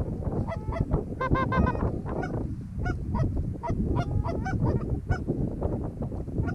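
Rapid goose honks and clucks, many short calls in quick runs, over a steady low rumble.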